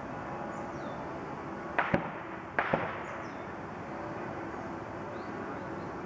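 Two sharp double clicks, about a second apart, over a steady outdoor hiss, with a few faint high chirps.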